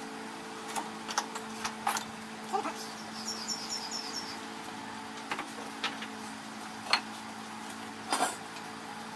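Scattered clicks and knocks of a steel plate and tools being handled on a metal-working bench, the loudest near the end, over a steady low hum. A quick run of five short high chirps about three seconds in.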